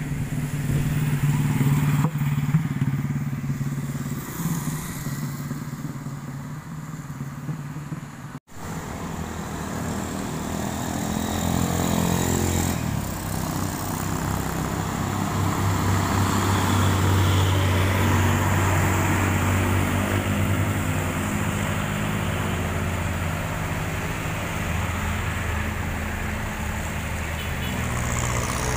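Road traffic passing on a wet road: motorcycles and a car go by first, then heavy loaded trucks, whose diesel engines are the loudest part about halfway through, with tyre hiss from the wet surface. The sound cuts off abruptly once, about eight seconds in.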